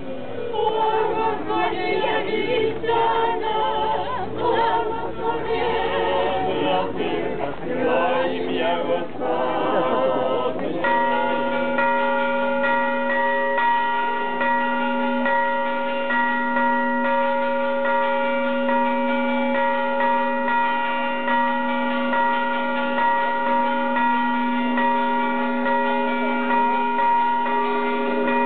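Voices singing an unaccompanied Orthodox church chant. About eleven seconds in, church bells take over, ringing continuously as a sustained, gently pulsing peal.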